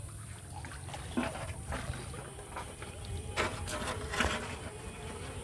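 Wet cast net and fish being lifted out of shallow river water and pushed into a pot: water splashing and dripping, with several sharp splashes or knocks. A low steady rumble runs underneath.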